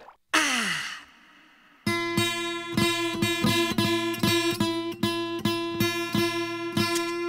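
A short sound effect with a falling pitch just after the start. From about two seconds in, an acoustic guitar is strummed in an even rhythm, about three strokes a second, repeating the same chord.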